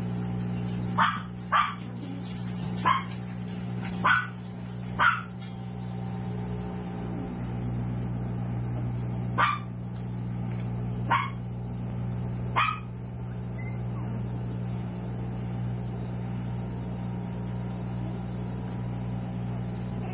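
Tiny toy poodle puppies giving short, high-pitched play barks as they wrestle: eight yips, five in quick succession in the first five seconds and three more, spaced out, about nine to thirteen seconds in. A steady low hum runs beneath.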